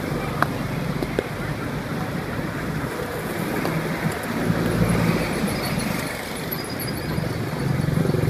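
Street ambience: a steady wash of traffic noise with the low hum of passing engines, swelling in the middle and again near the end, and some wind on the microphone.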